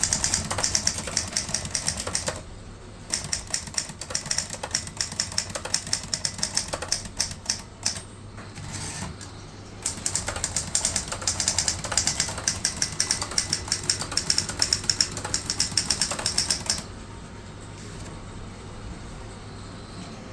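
Fast typing on a Remington Travel-Riter portable manual typewriter: rapid keystroke clacks in runs with a couple of short pauses, stopping about three-quarters of the way through.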